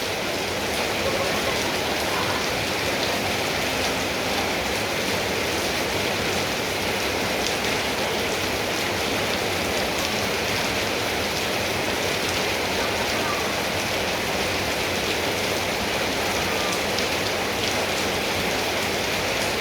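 Steady rain falling, an even hiss of rain with no break.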